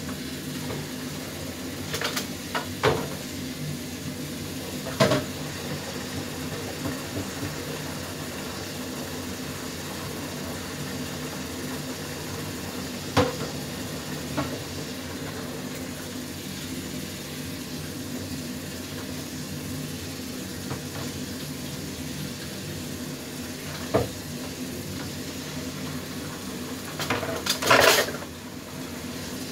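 Pots and metal utensils clanking now and then over a steady low hum, with a burst of clatter near the end.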